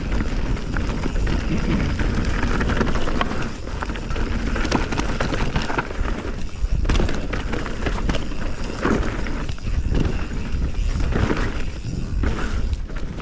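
Canyon Spectral 29 full-suspension mountain bike riding down dry, loose forest singletrack: tyres rolling over dirt and leaves, with frequent clicks and knocks from the bike rattling over roots and rocks. Wind rumbles on the chest-mounted camera's microphone.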